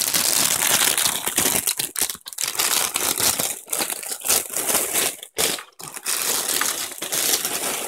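Clear plastic packaging bag crinkling as a hand works a microfiber duster out of it, with a few short breaks.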